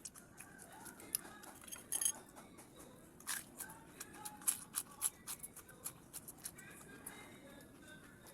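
Close-up eating sounds: chewing, with many sharp, irregular mouth clicks and smacks.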